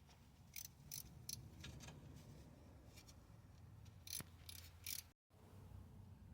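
Near silence with a few faint, irregular clicks. The sound drops out completely for a moment about five seconds in.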